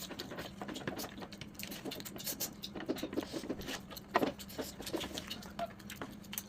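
Close-miked eating sounds: irregular wet smacks and clicks of chewing, over a faint steady hum.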